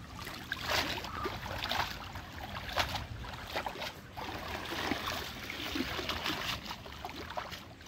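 Irregular splashing of water as a small cast net is gathered in shallow river water and hauled up, water pouring and dripping off the mesh as it comes out.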